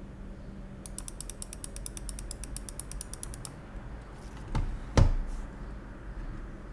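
Volume knob on an Epomaker TH80 mechanical keyboard being turned, its detents giving a rapid, even run of light ratchet-like clicks, about ten a second, for a couple of seconds. Two dull thumps follow near the end.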